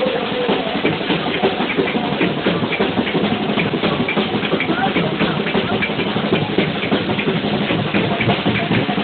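Fast, busy drumming on a large double-headed bass drum by a supporters' band, with a crowd's voices mixed in.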